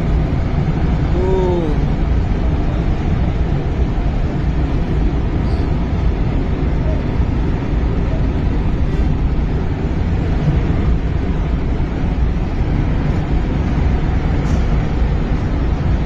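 Monsoon floodwater rushing in a loud, steady wash of noise. A brief pitched sound rises and falls about a second in.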